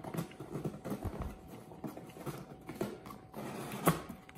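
Small cardboard box being opened by hand: irregular rustling, scraping and tapping of the flaps and packed contents, with one sharp knock near the end.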